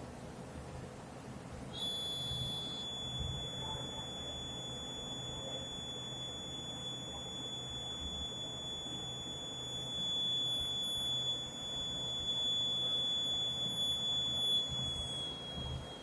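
Electronic buzzer of a DIY smoke detector circuit sounding one continuous high-pitched tone, starting about two seconds in and stopping near the end with a slight drop in pitch. It is the alarm triggered by the MQ6 gas sensor picking up smoke.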